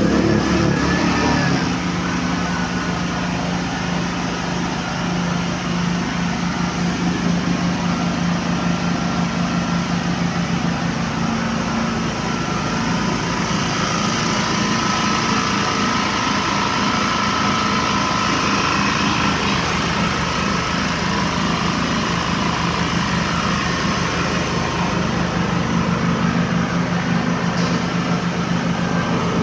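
Tsuzumi TIG5000iSDF dual-fuel inverter generator engine running on LPG, just started, a little louder in the first second or so, then settling into a steady, even run.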